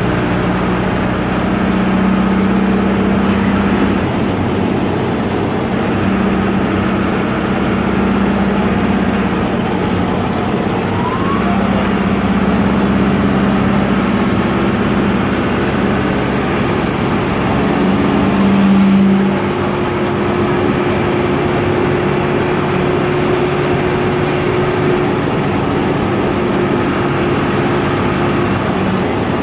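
Air-cooled Deutz F4L912 four-cylinder diesel of an Otokar M-2000 minibus running on the road, heard from the cab, its drone rising and falling with engine speed. It gives a brief louder surge a little past halfway.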